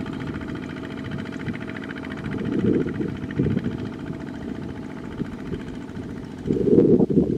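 Kubota ZT155 two-wheel tractors' single-cylinder diesel engines running steadily as they haul trailers loaded with rice sacks. A low rumble swells briefly about three seconds in and is loudest near the end.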